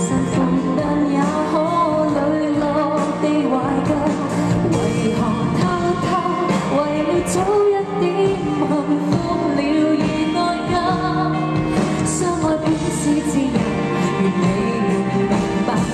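A woman singing a pop song live into a handheld microphone, backed by a band.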